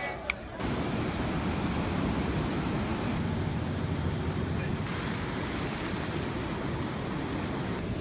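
Steady rush of ocean surf mixed with wind on the microphone, starting abruptly about half a second in.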